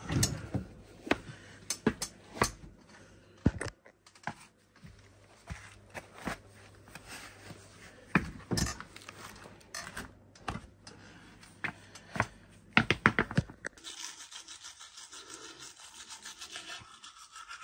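Scattered knocks and clicks, then, from about fourteen seconds in, a toothbrush scrubbing teeth in quick, even back-and-forth strokes.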